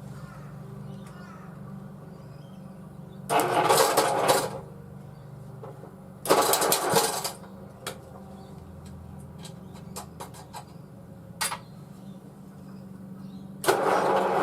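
Rover Colt 8 ride-on mower engine being cranked in short bursts that do not catch: two about a second each, and a third starting near the end, under a steady low hum. It cranks over but will not fire.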